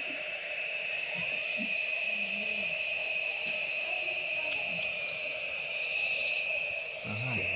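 Steam-inhalation (nebulizer) machine running, giving out a steady hum with a high hiss as it feeds vapour to a child's mask.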